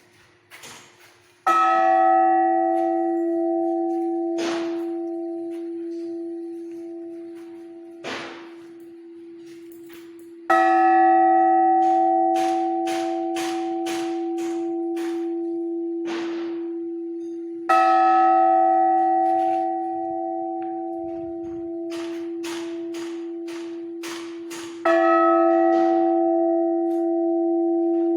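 A 230 kg church bell struck four times, seven to nine seconds apart, each strike ringing on in a long, slowly fading tone until the next. Faint clicks and knocks sound between the strikes.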